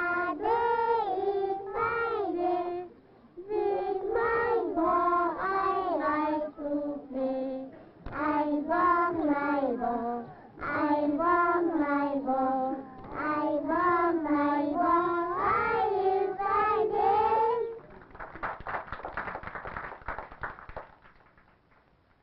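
Children singing a song in several phrases with short breaks between them. The singing stops a little before the end, and fainter noise dies away after it.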